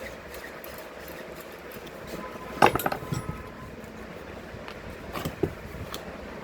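A short clatter of knocks and clinks, like parts or tools being handled during a power-tool repair, about two and a half seconds in, with a brief ring. Two softer knocks follow near the end, over a steady background hiss.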